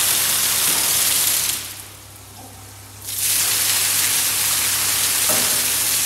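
Heavy column of water dumping from the large bottom valve of a wooden dousing bucket. It cuts off sharply about a second and a half in, then pours again for about three seconds.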